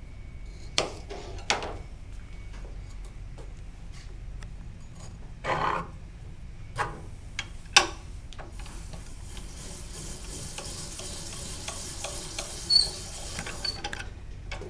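A knife cuts through a raw potato onto a plastic cutting board, with two sharp knocks, followed by a few clunks and clicks as the potato is set on the cutter. From about halfway on comes a steady hissing scrape with small ticks: the potato being hand-cranked through the blade of a Nemco Spiral Fry cutter and sliced into spirals.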